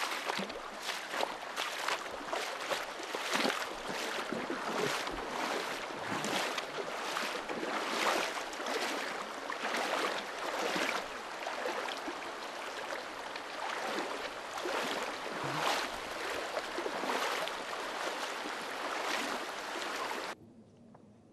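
Stream water rushing and splashing over stones close to the microphone, a dense, continuous splashing that cuts off suddenly near the end.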